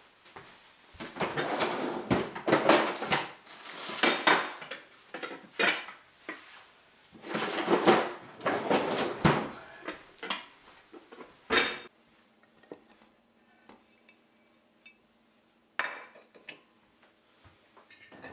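Dishes and kitchenware being handled at a kitchen sink, a busy run of clinks and knocks for about ten seconds. Then it goes quiet apart from a faint low steady hum, with one more clatter near the end.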